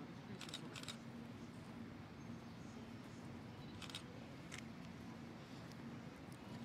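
Faint, steady low hum of a diesel switcher locomotive moving slowly through a railyard, with a few sharp metallic clicks and clanks: two about half a second in and two around four seconds.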